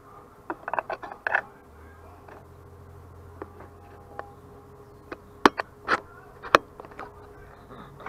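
Handling noise from an action camera being shifted about on a desk: a scatter of clicks and knocks, with a quick cluster near the start and three sharper clicks a little past the middle. A faint low hum runs for a few seconds in the middle.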